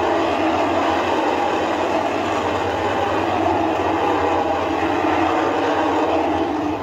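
Rocket Lab Electron rocket's nine Rutherford first-stage engines firing through liftoff and climb-out, a loud, steady rumble.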